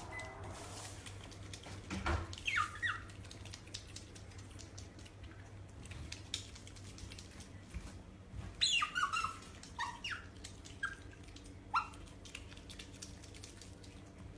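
An animal's short, high squeaky calls, each falling sharply in pitch, a pair about two seconds in and a burst of several from about nine to twelve seconds in, over a faint steady low hum.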